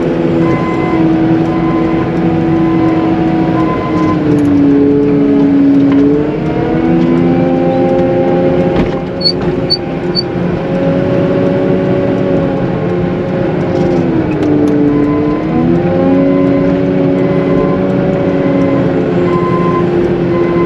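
CAT 906M compact wheel loader's diesel engine running under load while pushing heavy slush, its pitch dropping and climbing back twice as it shifts between forward and reverse. Its reverse alarm beeps steadily at the start and near the end, and three short high beeps sound about nine seconds in.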